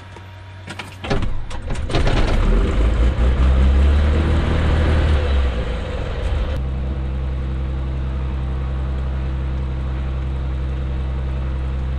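Continental IO-550-N fuel-injected flat-six engine of a Columbia 350 cranking on the starter about a second in, catching within a second and running loud with the throttle open, then settling to a steady idle from about six seconds in, heard from inside the cockpit.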